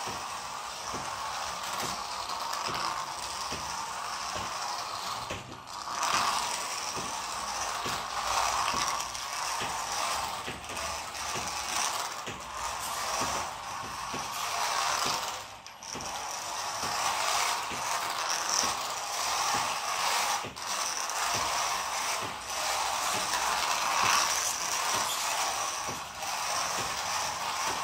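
Small brushed electric motor and gear drive of a converted toy RC car whirring as it drives across a hard floor, with fine clicking. The whirr swells and eases as the car speeds up and slows, and it stops briefly several times.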